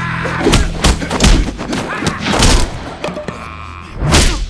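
Fight-scene sound effects: a quick series of heavy punch and body-impact thuds, about five in four seconds, with short grunts, over background music.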